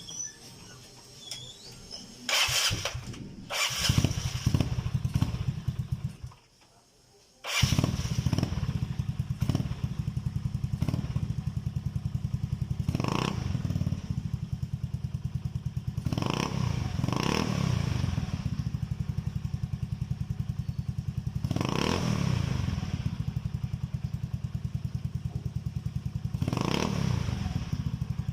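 Yamaha Mio Soulty scooter's single-cylinder four-stroke engine, breathing through an Apido aftermarket exhaust pipe. It starts about two seconds in and dies after a few seconds. It starts again about a second later, then idles with a quick throttle blip about every four to five seconds.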